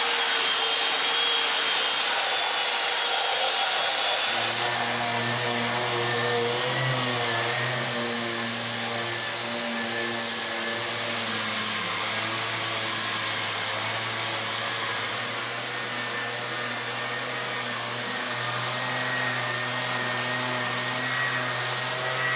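For the first four seconds or so, an angle grinder runs against the edge of a cured epoxy hood, with a thin high tone over a steady hiss. Then a random orbital sander runs steadily over the epoxy surface, a constant hissing whir with a low hum under it.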